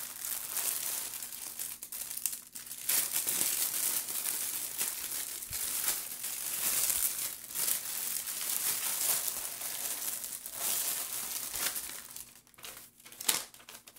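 A clear plastic bag packed with small baggies of diamond painting drills being handled and rustled, a continuous crinkling. It pauses briefly about two and a half seconds in and turns quieter and choppier near the end.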